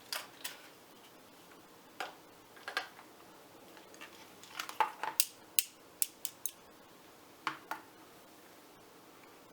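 Scattered sharp metallic clicks and clacks from the pit bike's battery leads and switches being handled and worked, coming singly and in small clusters. No starter motor turns and no engine runs: the bike still won't start.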